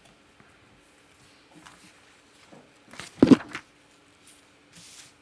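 Faint rustling and handling noises over a low steady hum in a quiet room, with a short, loud cluster of bumps a little after halfway and a brief soft rustle near the end.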